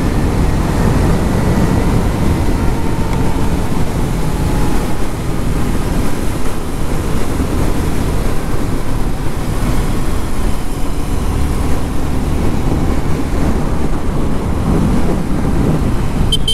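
Wind noise on the helmet microphone over the steady running of a Suzuki Gixxer 250's single-cylinder engine on the move. A brief horn toot comes right at the very end.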